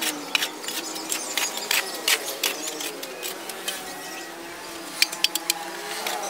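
A hoe mixing a heap of soil, rice husk and manure, played fast-forward: quick, irregular scraping knocks of the blade in the mix. A faint wavering pitched sound runs underneath.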